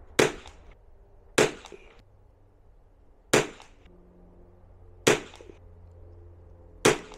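Five sharp .22 rimfire rifle shots fired with vintage Western Super Match ammunition, spaced about one and a half to two seconds apart, each with a brief echo.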